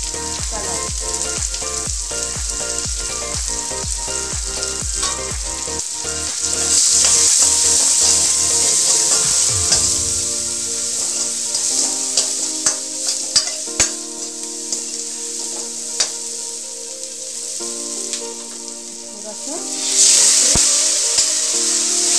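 Onion-tomato masala frying and sizzling in an aluminium kadai, stirred with a steel ladle that clicks and scrapes against the pan. The sizzle gets louder about six seconds in and again near the end.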